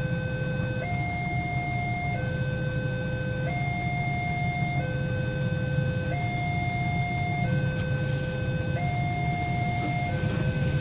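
Railway level-crossing warning siren sounding its two-tone signal, switching between a higher and a lower tone about every second and a third, to warn road users that a train is coming and the barrier is closed. Under it runs a steady low rumble of vehicle engines in the queued traffic.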